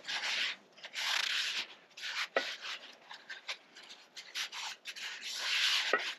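A cast iron dutch oven being scrubbed clean after cooking: a series of rubbing strokes, roughly one a second, with short pauses between them.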